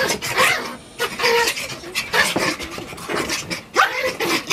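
Two dogs play-wrestling: heavy breathing mixed with short, bending vocal noises and quick scuffles of paws and bodies on an upholstered armchair.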